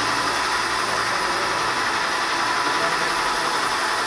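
Paint spraying machine running, a steady even hiss of motor and spray with a faint low hum.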